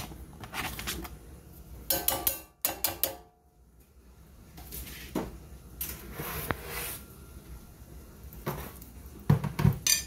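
Kitchen clatter at a stainless steel pot: diced onion is scraped off a flexible cutting mat into it, then scattered clinks and knocks of utensils, with a few heavier low thumps near the end.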